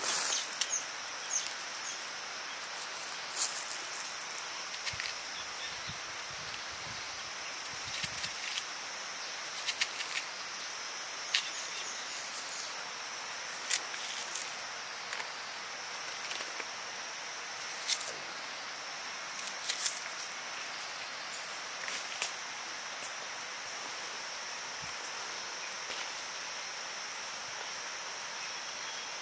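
Insects chirring in a steady high-pitched drone, with a few scattered short clicks and faint low knocks.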